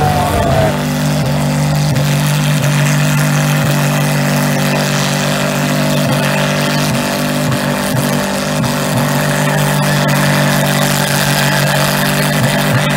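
Big engine held at high, steady revs under full load as a tube-frame buggy and a lifted truck pull against each other in a tug-of-war, wheels spinning in the dirt. The engine note stays at one pitch with no let-up.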